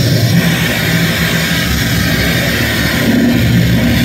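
A loud, steady wall of harsh electronic noise from a live noise-music set played through a club PA. A dense hiss spreads across all pitches over a heavy low rumble.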